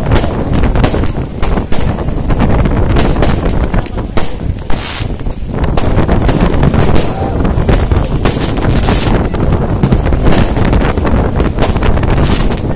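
Aerial fireworks bursting overhead, with repeated bangs and crackles at irregular intervals. Heavy storm wind buffets the microphone throughout.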